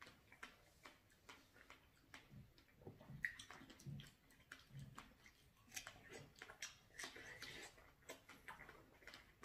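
Faint, irregular wet mouth clicks and smacks of people chewing juicy fresh strawberries.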